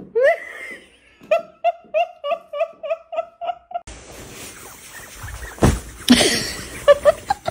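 A person laughing in a high voice: a rising whoop, then a run of short, even 'ha' sounds about three a second. About four seconds in it gives way to a noisier stretch with a few louder sudden sounds.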